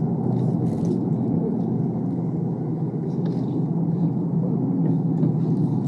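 Steady low rumble inside a car cabin, with a few faint clicks.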